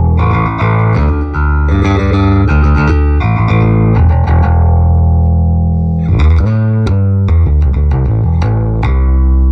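Electric bass guitar played through a Peavey VB-2 all-tube bass amplifier: a run of plucked notes over held low notes, with a quicker stretch of notes about six seconds in.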